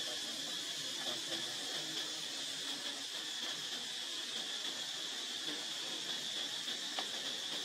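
Steady, high-pitched drone of insects.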